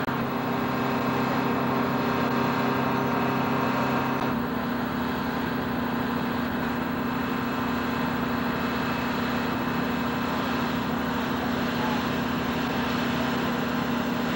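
Steady mechanical drone of aircraft and ground-service machinery on an airport ramp, with several steady tones held through it; the tone shifts about four seconds in.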